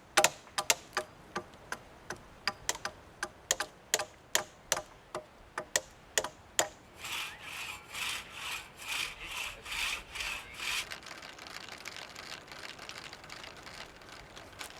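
Woodworking by hand: a run of sharp knocks on wood, then a hand saw cutting wood in quick back-and-forth strokes, about two to three a second, for about four seconds.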